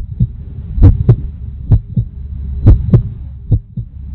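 Heartbeat sound effect: paired low thumps, a lub-dub about once a second, over a steady low drone.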